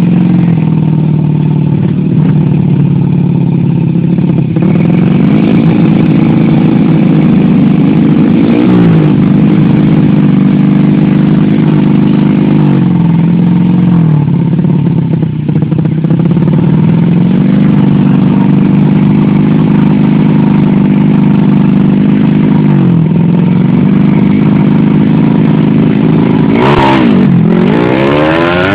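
Small motorcycle engines running hard at speed, one loud engine tone dropping and climbing back up in pitch several times. Near the end the pitch swoops sharply down and back up.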